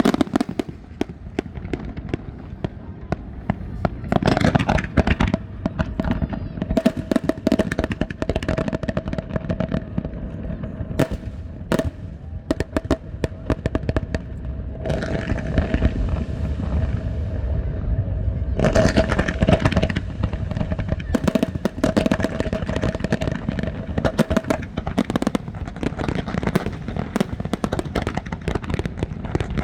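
New Year fireworks display: a dense, uneven barrage of bangs and crackles, with a stretch of hissing sparks about halfway through and a faint steady tone beneath much of it.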